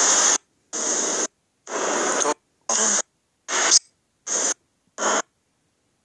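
Seven short bursts of steady, hiss-like background noise, each about half a second long, starting and stopping abruptly with silence between them.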